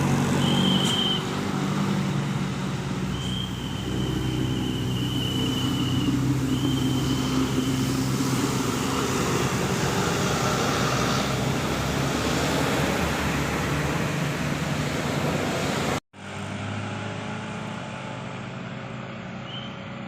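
Vehicle and road-traffic noise with engines running, overlaid by three steady high tones in the first eight seconds, one brief and one held for nearly three seconds; the sound cuts out abruptly about sixteen seconds in and resumes quieter.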